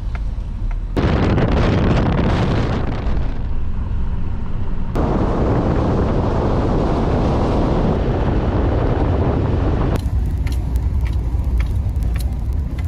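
Pickup truck driving on a gravel road: loud road and wind rush, with wind buffeting a microphone mounted outside the truck. The sound changes abruptly about a second in, about five seconds in and about ten seconds in; the last part is duller, with scattered sharp clicks.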